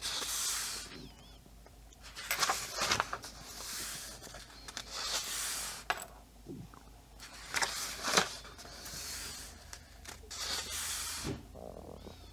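Pages of a paperback colouring book being turned one after another, each turn a short papery swish with faint handling clicks, about five turns a couple of seconds apart.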